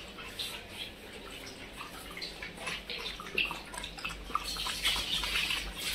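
Dogs lapping and eating a wet, milky meal from a plastic bowl: quick irregular wet slurps and clicks that grow busier near the end.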